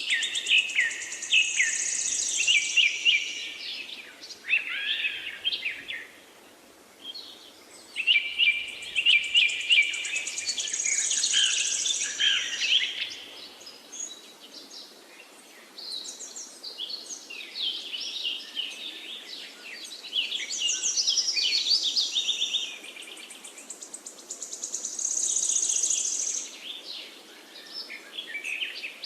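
Forest songbirds singing, several birds overlapping in trilled, chirping phrases a few seconds long with short pauses between, over a faint steady rush of flowing river water.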